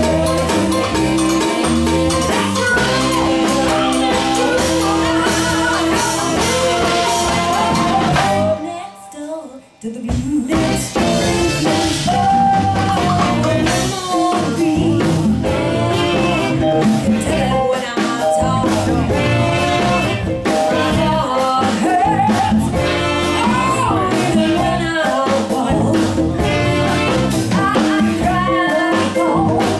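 Live blues band playing with a woman singing, over keyboard, electric guitar, bass, drums and congas. A little under ten seconds in, the band stops for about a second and then comes back in.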